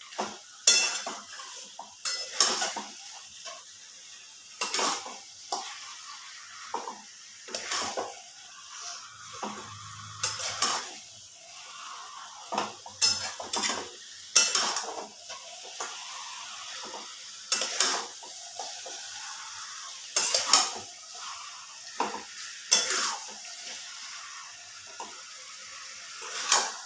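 Spatula scraping and knocking against a metal kadai at irregular intervals while stirring and browning chicken in thick masala, over a steady frying sizzle.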